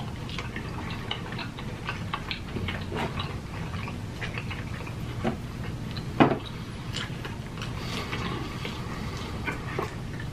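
Close-miked chewing and mouth smacking of pizza: a steady run of small irregular wet clicks, with a louder mouth sound about six seconds in.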